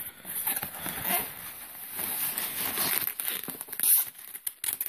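Rustling and scraping of a cardboard mailer box being handled and opened, with one sharp snap about four seconds in.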